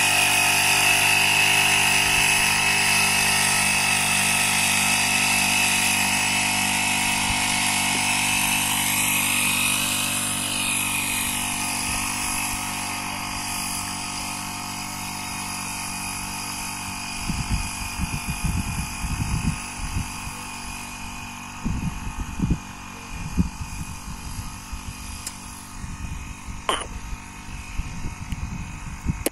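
Small petrol engine of a backpack mist-blower sprayer running steadily at high speed, spraying pesticide, and growing fainter as the operator walks away down the field. In the second half, low, irregular rumbling comes and goes.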